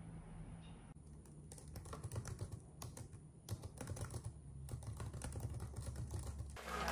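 Fingers typing on a slim, low-profile keyboard: quiet, irregular key clicks starting about a second in. Music comes in right at the end.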